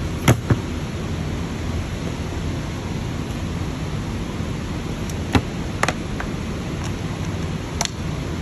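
A few sharp clinks and knocks of metal parts and tools being handled on a workbench: two close together just after the start, more around five to eight seconds in. Steady background noise runs underneath.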